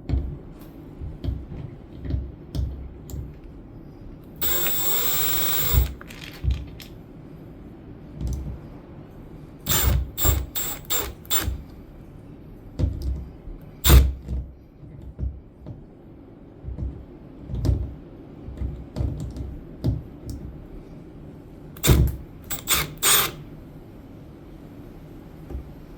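A power drill runs once for about a second, unscrewing parts of a door lock being taken off. Knocks, rattles and sharp metallic clicks of the lock hardware and screws being handled come throughout, with clusters of clicks about ten seconds in and again near the end.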